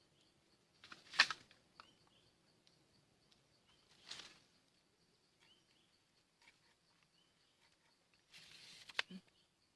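Quiet outdoor ambience: a faint steady pulsing insect trill and occasional small bird chirps. Three brief noises break through it, about a second in, about four seconds in, and a short hiss ending in a sharp click near the end.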